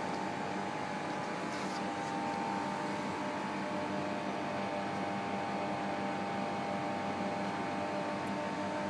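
Steady mechanical hum of laboratory equipment: an even whir with a few steady tones in it.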